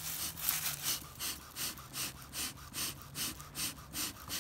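Bee smoker's bellows pumped steadily, about three puffs of air a second, to keep the fire drawing while it is packed with pine straw so it doesn't suffocate.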